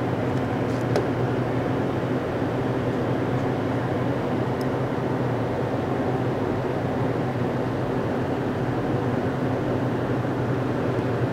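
Steady low mechanical hum of a running machine, with a few faint ticks.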